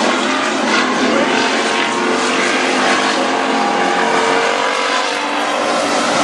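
Several dirt-track street stock race cars' V8 engines running hard around the oval, a loud steady blend of engine noise from the cars on track.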